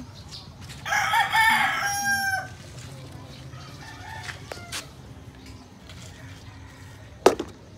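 A rooster crowing once, about a second in, for roughly a second and a half, ending on a long held note. A single sharp knock near the end.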